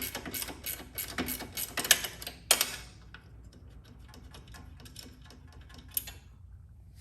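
Small socket ratchet clicking quickly as it backs off a nut, with a louder click about two and a half seconds in; fainter, slower clicks follow, then a single sharper click near the end.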